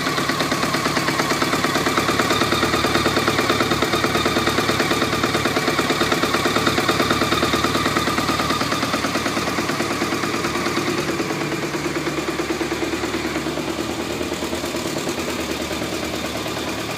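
1991 BMW K100 RS 16V inline-four engine idling with a fast, harsh rattle from the junction between engine and gearbox, an abrupt vibration that the owner suspects is a clutch problem.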